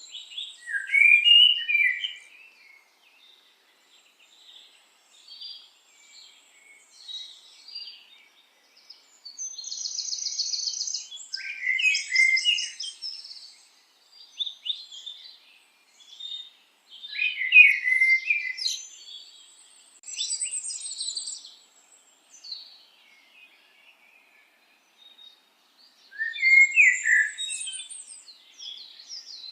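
Bird song: high chirps and trills in repeated phrases, the loudest coming about every six to nine seconds, with softer chirps in between.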